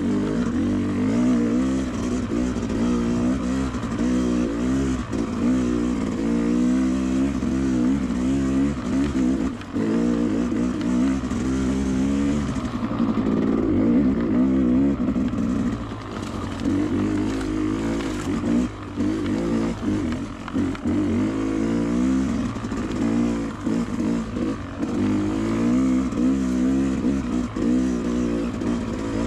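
Two-stroke dirt bike engine on a trail ride, revving up and falling back again and again as the throttle is worked.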